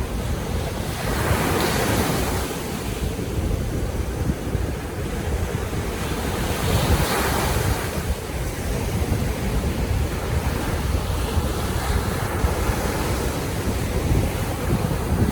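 Baltic Sea waves washing in, with two waves breaking louder about two seconds in and again about seven seconds in. Wind buffets the microphone throughout as a gusty low rumble.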